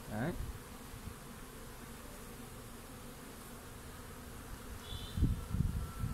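Swarm of Asian honeybees (Apis cerana) buzzing steadily around an opened hive frame. A few low thumps near the end are louder than the buzzing.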